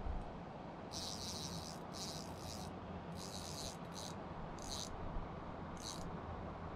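An insect buzzing in short, high-pitched bursts, each under a second, about nine times at irregular spacing, over a steady low background rush.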